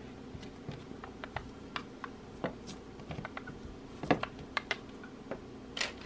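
Light plastic clicks and taps, irregular and scattered, from Play-Doh letter cutters and dough tubs being handled on a tabletop. The loudest clicks come about four seconds in and just before the end.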